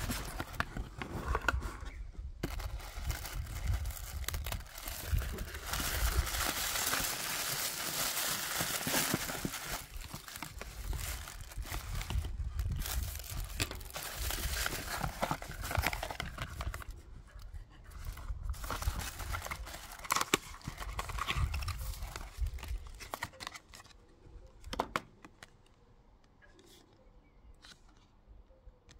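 Cardboard mailer box being opened by hand and tissue paper rustled and crinkled as it is pulled back, with scattered handling clicks; the rustling is densest in the first half and thins out near the end.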